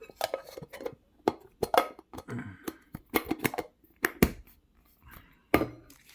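Handling of Pokémon card packs and their plastic box: a quick run of clicks, taps and rustles, with a few sharper knocks, the loudest about four seconds in.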